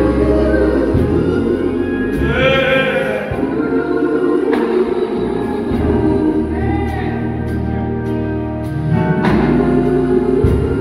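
Gospel choir singing held chords, live, over steady bass notes, with a few drum hits.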